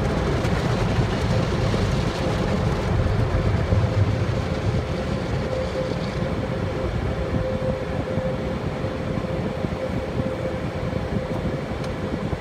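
Steady low rumble with a constant hum, heard inside a stationary car's cabin with the engine idling.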